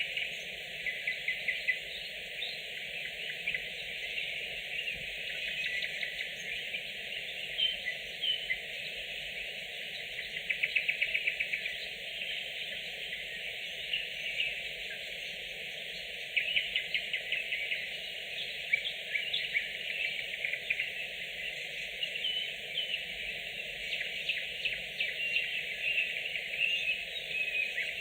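Nightingales singing: long phrases of rapid repeated notes and trills, with loud bursts of rattling notes about eleven and sixteen seconds in.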